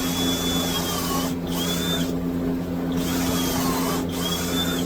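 Power drill boring pocket holes in a 2x4, running in about four short runs with brief stops between, a high whine that dips at the end of each run. A steady low hum sits underneath.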